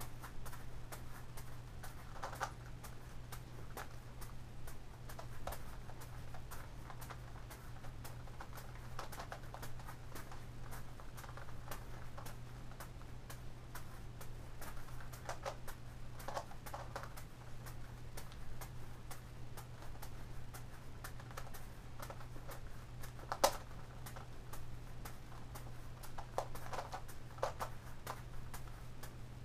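Irregular light clicking and patting as juggling balls are caught in the hands and the plastic layers of a gigaminx puzzle are turned, with one sharper click about 23 seconds in. A steady low hum runs underneath.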